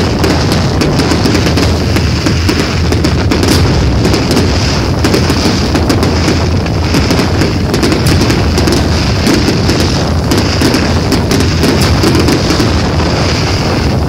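Fireworks display: a loud, dense barrage of bangs and crackles from bursting shells, going on without a break.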